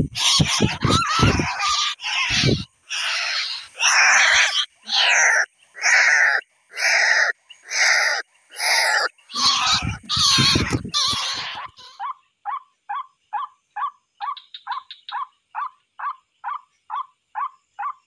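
White-breasted waterhen calling: a string of loud, rough calls repeated about every half second. About twelve seconds in these give way to a long series of short, quieter notes at a little over two a second. Low rumbling noise sounds under the calls at the start and again about ten seconds in.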